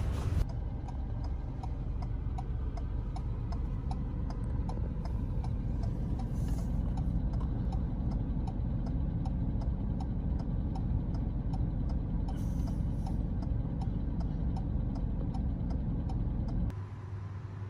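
Car's indicator relay ticking evenly over the steady low hum of the idling engine, heard inside the cabin; both stop abruptly near the end.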